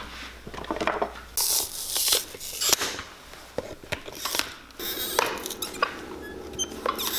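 Hand work on a leather dress shoe: irregular clicks and several short scraping, tearing sounds of tools on leather and sole as the shoe is taken apart.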